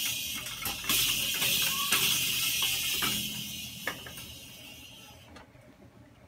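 A toy drum kit struck with a drumstick: a few hits about a second apart, each setting off the small cymbal's bright hissing ring, which fades out about five seconds in.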